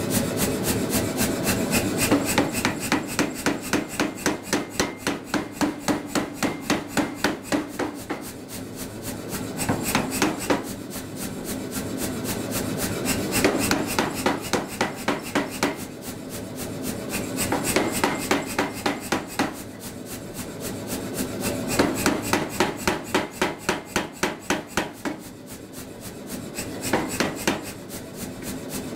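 Self-contained Say-Mak power hammer running and striking a red-hot steel hammer-head blank between flat dies, in runs of rapid blows at about three a second with short breaks between runs.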